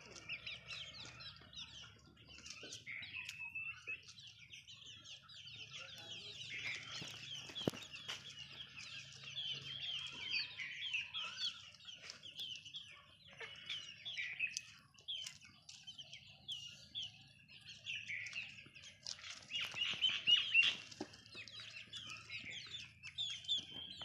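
A flock of young desi chickens calling while they forage: many short, high cheeping and clucking calls overlapping all through, busiest and loudest a little before the end.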